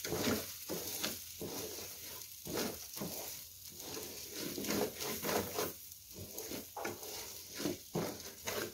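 Wooden spatula stirring soaked rice as it fries in oil in an aluminium pot, with a scraping rustle about twice a second over a light sizzle. The rice is being toasted with whole spices before the water is added.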